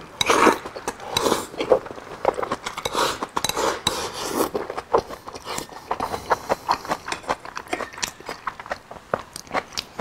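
Close-up eating: chopsticks clicking and scraping against a glazed bowl while rice is shovelled in, with chewing and mouth sounds. Many quick clicks run throughout, and the mouthing sounds are louder in the first few seconds.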